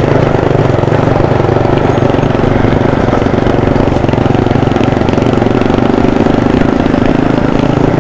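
Small motorcycle engine running steadily at an even speed.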